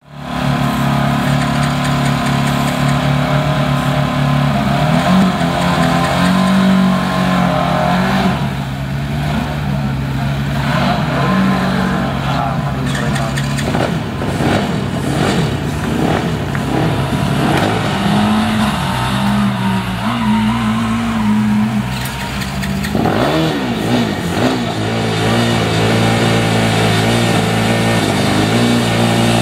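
Student Formula race car engine idling steadily, with several short revs that rise and fall in pitch, the biggest about three quarters of the way through.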